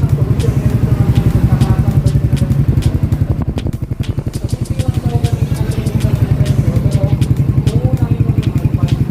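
Euro Marvel 125 motorcycle's 125 cc engine idling with an even, pulsing exhaust beat, dipping briefly in loudness a few seconds in.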